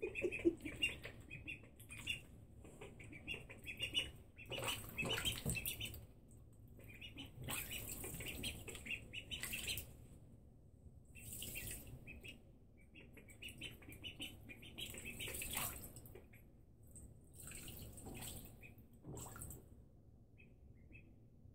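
Two ducklings peeping with short, high cheeps in clusters while they swim and paddle in shallow bathtub water, with several brief splashes along the way; both grow quieter in the last couple of seconds.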